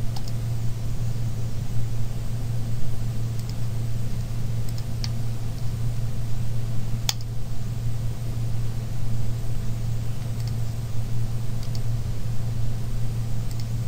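Steady low hum with a few scattered computer mouse clicks, the clearest about halfway through, as faces are picked on screen.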